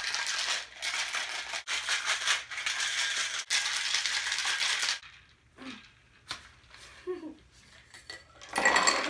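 Ice rattling in a cocktail shaker shaken hard for about five seconds, with brief breaks between strokes. Near the end, the shaken drink pours out of the shaker into a glass of ice.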